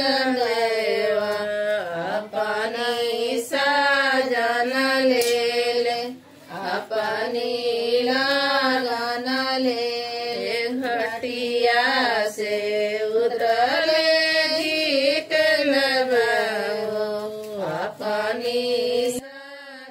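A Chhath puja devotional folk song: a single voice singing long, wavering held notes in short phrases, cutting off suddenly just before the end.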